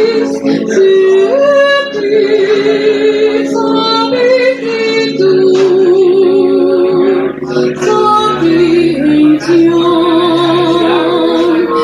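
A woman singing into a microphone, holding long notes with a wide vibrato and moving slowly between pitches.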